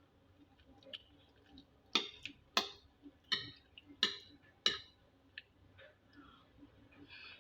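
Cutlery clinking and scraping against a dish while eating: about five sharp clinks roughly two-thirds of a second apart, starting about two seconds in, with a few fainter ticks around them.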